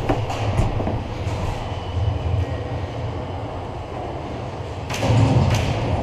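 Steady low rumbling movement noise, with a few sharp clicks and knocks near the start and about five seconds in.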